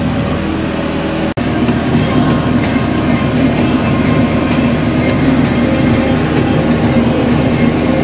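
John Deere 6330 Premium tractor running under load while driving a John Deere 338 small square baler through its PTO shaft: a steady engine hum mixed with the baler's mechanical clatter. The sound drops out for an instant a little over a second in.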